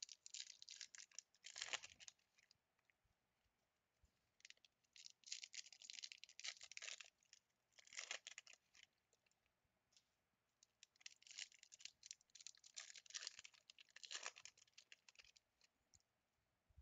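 Plastic wrapping on a box of trading card packs crinkling and tearing as it is pulled open by hand. It comes in four bursts of crackling with short pauses between them.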